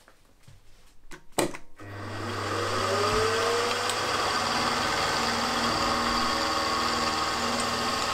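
Milling machine switched on after a couple of clicks: about two seconds in the spindle motor starts, with a steady hum and a whine rising as it runs up to speed, then it runs steadily while the end mill starts cutting into the steel conrod blank.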